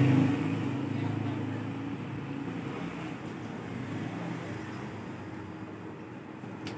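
A steady low engine-like hum fading away gradually, with a single sharp click near the end.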